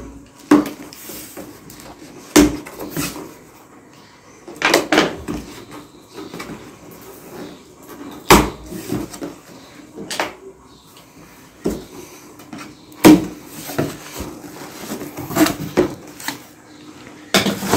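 A cardboard carton being unpacked: scissors slitting the packing tape, the flaps pulled open and the plastic-wrapped parts handled inside, with repeated sharp knocks and thuds of cardboard. Plastic wrap rustles near the end.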